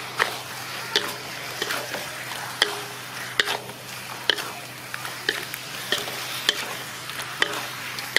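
Wooden spatula scraping and knocking against a metal wok, stirring food through a sticky sauce in regular strokes a little more than once a second, over a steady sizzle.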